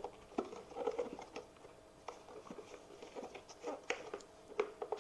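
Plastic housing of an OOKAS ceiling exhaust fan handled and turned over in the hands: irregular light clicks, taps and rubbing of hard plastic.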